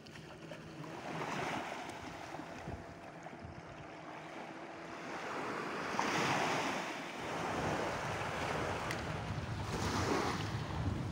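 Small sea waves washing up on a sandy shore, swelling and fading three times, with wind buffeting the microphone.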